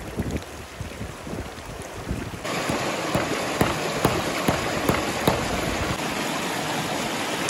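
Fast mountain stream rushing over rocks close by. About two and a half seconds in, the stream suddenly gets louder and brighter. A handful of sharp clicks follow over the next few seconds from close handling of a metal ring-pull tab on a wooden stick.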